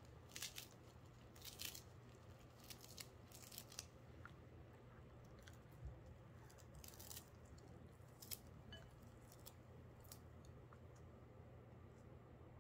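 Faint, irregular crisp snips of a small knife slicing through a bunch of fresh coriander held in the hand, cutting it fine.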